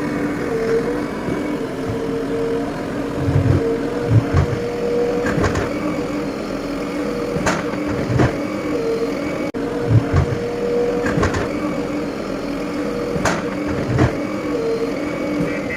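JCB 3DX backhoe loader's diesel engine running steadily under load during demolition, with several low thuds and a few sharp knocks from the work.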